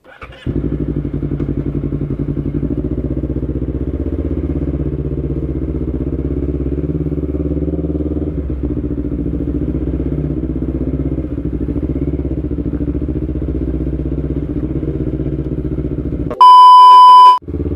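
Motorcycle engine running steadily as the bike rides along. Near the end, a loud steady beep lasting about a second cuts in and briefly replaces the engine sound.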